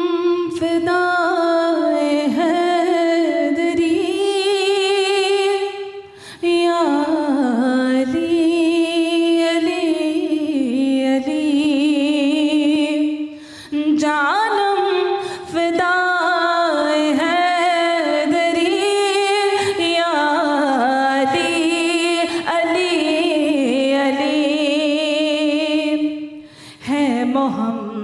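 Unaccompanied female voice singing a devotional manqabat into a microphone, in long held, ornamented lines with vibrato, pausing briefly for breath a few times.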